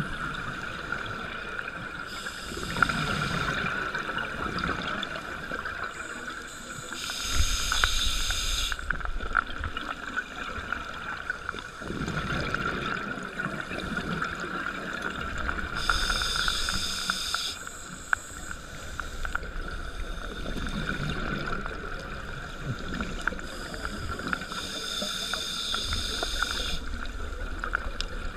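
Scuba diver breathing through a regulator underwater: slow, regular breaths with a hiss on each inhalation and bubbling on the exhalations, about one breath every nine seconds, over a steady background of small clicks.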